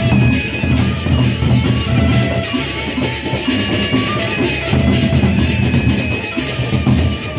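Gendang beleq ensemble playing: large double-headed Sasak barrel drums beaten with sticks in fast, dense strokes, with held metallic tones ringing over the drumming.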